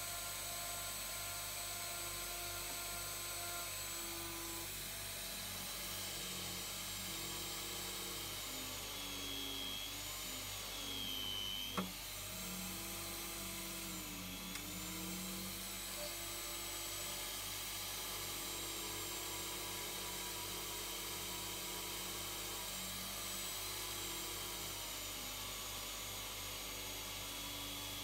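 Small drill press running steadily while a fine bit drills into a small threaded copper part; the motor's whine dips in pitch a few times as the bit bites under load, with one sharp click about twelve seconds in.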